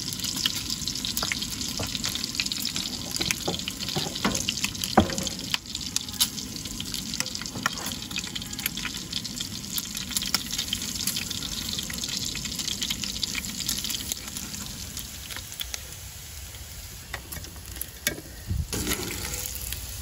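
Pancake batter sizzling in butter in a small frying pan, a steady hiss full of little crackles and pops. A sharp click comes about five seconds in, and the sizzle eases somewhat near the end.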